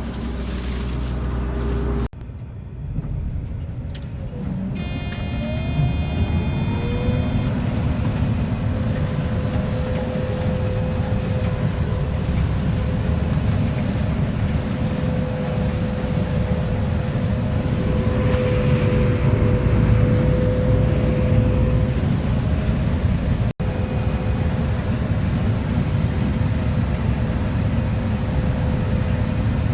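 Combine harvester running while harvesting corn: a steady, loud engine and machinery drone, with a whine that rises in pitch a few seconds in and then holds steady.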